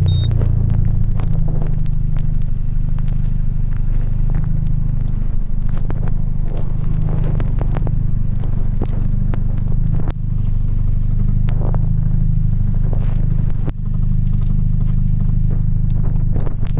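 Straight-piped Mk1 Audi TT 180's 1.8-litre turbocharged four-cylinder engine running with a steady low drone that drops off briefly twice, about ten and fourteen seconds in.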